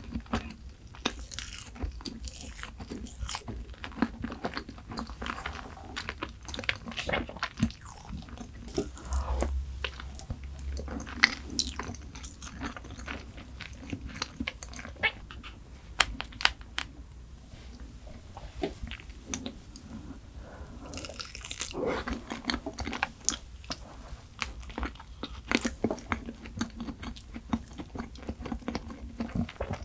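Close-miked eating: a person biting and chewing dessert, with crunching and many short, sharp mouth clicks.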